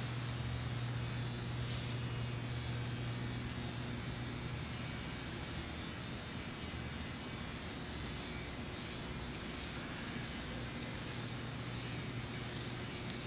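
Steady low electrical hum, a little stronger in the first few seconds. From about a third of the way in, faint short scratchy strokes repeat roughly once or twice a second, matching a paintbrush being drawn along the ice.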